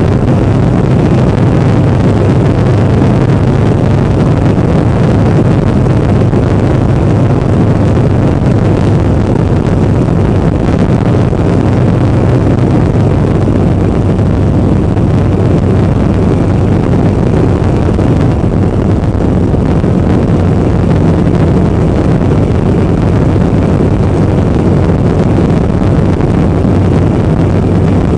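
Motorcycle engine running steadily at road speed, heard from a camera mounted on the bike, with heavy wind rush on the microphone.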